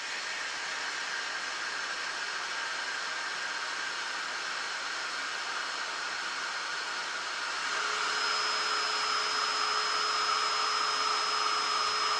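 CPAP blower fan used as a 3D printer part-cooling fan, under PWM speed control: a steady rush of air as it spins up at the start. About eight seconds in it gets louder, its speed stepped up, and a steady whine joins the air noise.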